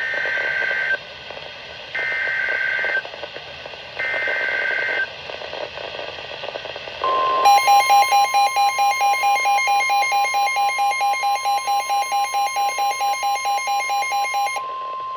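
Emergency Alert System SAME header: three one-second bursts of warbling two-pitch data tones, two seconds apart. About seven seconds in, the steady single-pitch warning alarm tone of NOAA Weather Radio starts, and a loud, harsh pulsing beep of about four a second sounds over it until shortly before the end.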